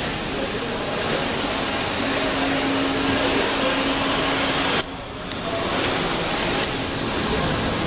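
Steady loud hiss of factory hall background noise, with a low hum for a few seconds in the middle. About five seconds in, the hiss drops off suddenly and then builds back up.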